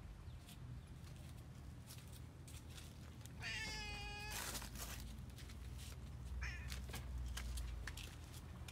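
Black-and-white domestic cat meowing: one long meow about three and a half seconds in, lasting nearly a second, then a short, fainter, higher call a couple of seconds later.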